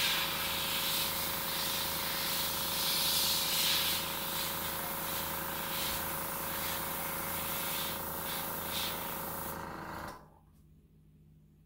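Airbrush spraying paint with a steady hiss over the hum of its air compressor. The sound cuts off suddenly about ten seconds in.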